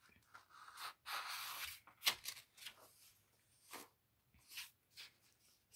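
A page of a hardcover picture book being turned: a soft paper rustle lasting about a second, then a sharp tap and a few fainter ticks as the page is laid flat and smoothed down.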